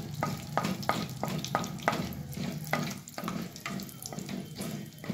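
Cumin, mustard and fenugreek seeds sizzling in hot ghee in a metal kadhai while a wooden spatula stirs them, with sharp ticks about three times a second: the tadka being tempered.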